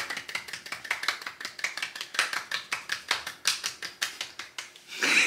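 Hands clapping quickly and irregularly, a rapid run of sharp claps several times a second.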